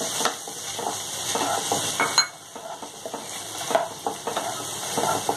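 Wooden spatula stirring and scraping chopped onion, tomato and peas around a non-stick frying pan, with a steady sizzle of the vegetables frying in butter. A sharp tap about two seconds in.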